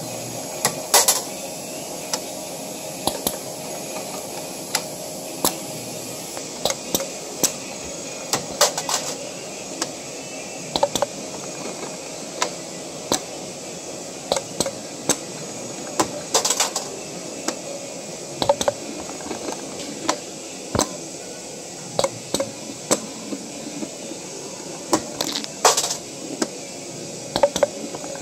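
MEC FL-8 spring-forming machine running, a steady hum under frequent sharp metallic clicks and clinks at an irregular pace as it forms tiny double torsion springs from .024-inch wire.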